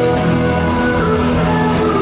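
Live band music with electric guitar and drums, and a male singer holding notes into a microphone.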